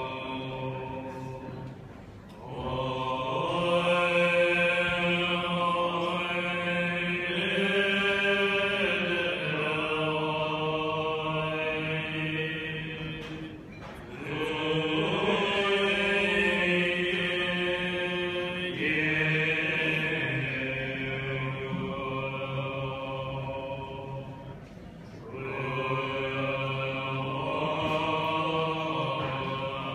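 A group of Tibetan Buddhist monks chanting together in long, drawn-out notes. The chant shifts slowly in pitch and breaks off briefly for breath three times.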